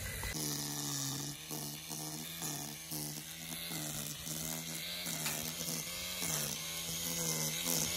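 Makita DUR190U 18V brushless cordless line trimmer running and cutting grass. Its motor pitch dips and recovers about twice a second as the spinning line bites into the grass, over a steady hiss.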